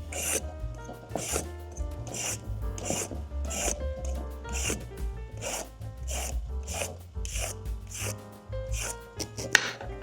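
Regular rasping strokes, a little more than one a second, over soft background music with a steady bass line; a sharper hit comes near the end.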